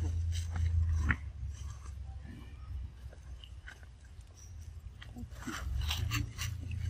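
Scattered soft crunches and clicks as pig-tailed macaques move about on dry leaves and rock, over a steady low rumble. The clicks come thicker about five to six seconds in.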